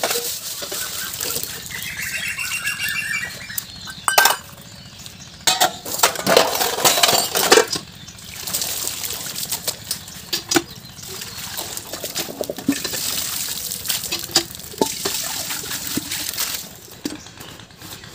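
Stainless-steel plates and pots being washed under a hand pump: water splashing and running, with frequent sharp clinks of steel dishes knocking together.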